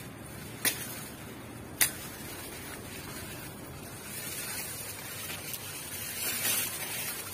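Shallow river water splashing and swishing as a hand and a stick work in it to set a fishing trap. Two sharp clicks come about a second apart near the start, and the splashing grows louder near the end.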